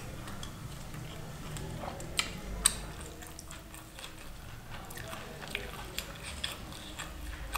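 Chewing a mouthful of lachha paratha with paneer curry, with scattered short clicks from the mouth and the food, two sharper ones between two and three seconds in.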